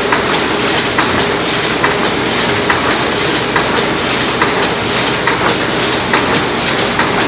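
Oliver 66 offset printing press running steadily: a dense mechanical clatter with a sharp clack repeating a little more often than once a second.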